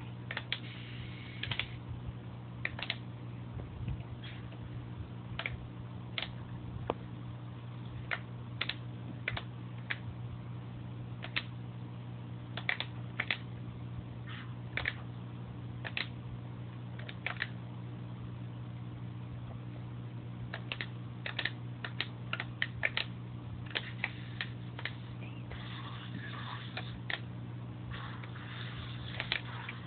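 Toy RC submarine's handheld remote being worked: short sharp clicks of its buttons or sticks, coming irregularly and in clusters, over a steady low hum.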